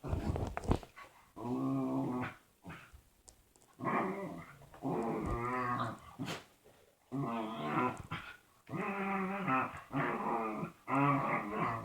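Dog making a run of weird growl-like vocal noises, about eight calls of under a second each with a wavering pitch and short pauses between them.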